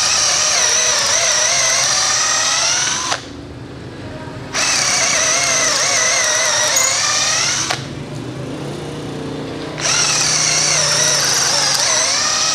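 Xiaomi Mijia Tonfon 12 V cordless drill boring an 8 mm twist bit into pine, in drill mode. It runs in three spells of about three seconds each, its motor whining under load, with quieter gaps between them. It never bogs down: the drill has power to spare in this softwood.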